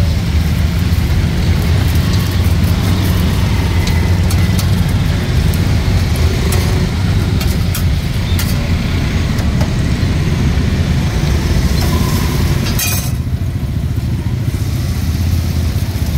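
Steady low drone of a motor engine running, with scattered clicks and scrapes of a metal spatula on a flat iron pan and one louder scrape late on.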